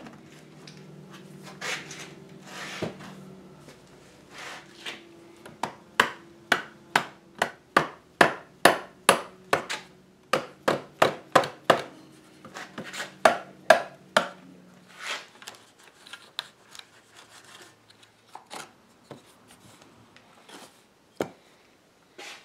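Hammer knocking on the frame of a mahogany chair to drive a glued joint at the back apart: a run of sharp wooden knocks, about two or three a second for several seconds, then a few scattered knocks.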